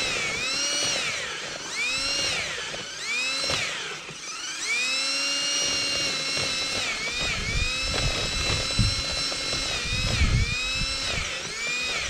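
Cordless drill boring into soil: its motor whine repeatedly speeds up and bogs down as the bit bites into the dirt, with a low grinding rumble about two-thirds of the way through. It winds down at the very end as its battery goes dead.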